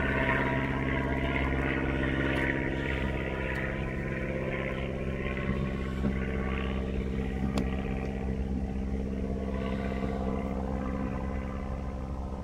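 Boise Valley Railroad diesel locomotive's engine running steadily as the train passes, slowly growing fainter, with a few sharp clicks about two, three and a half and seven and a half seconds in.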